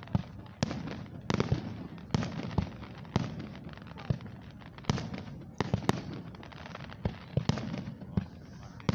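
Aerial fireworks bursting in a steady string of sharp bangs, one or two a second, with crackling and echoing between them.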